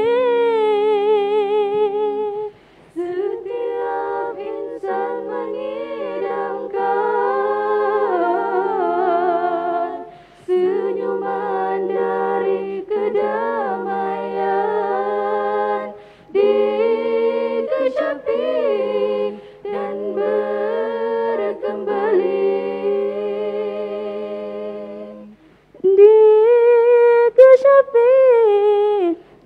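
A women's nasyid group singing a cappella into microphones: a lower voice holds steady notes beneath a lead melody sung with vibrato, in phrases broken by short breaths. The loudest phrase comes near the end.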